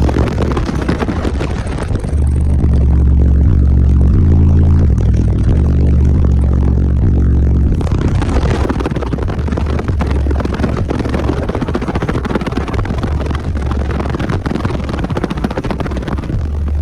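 Bass music played very loud through a car audio system of twelve 15-inch subwoofers in a sixth-order bandpass enclosure. The deep bass notes change in a repeating pattern, under a heavy rushing, rattling noise.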